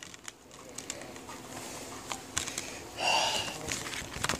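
Hands handling a Blu-ray case and its paper inserts: light plastic clicks and paper rustling, with a brief high squeak about three seconds in.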